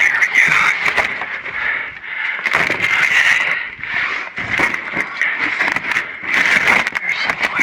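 Cardboard boxes and debris being shifted and dragged in a dumpster: irregular scrapes, rustles and knocks, over a constant high-pitched buzz in the background.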